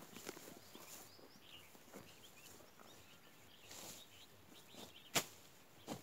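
A hoe striking grassy hillside ground in a sharp single stroke about five seconds in, with a softer stroke just before the end. Faint bird chirps sound earlier.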